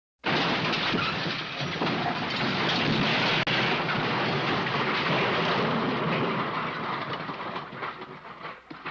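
An edited sound-effect clip: a loud, dense rushing noise that starts suddenly, holds for about eight seconds, then breaks up into crackles and fades out.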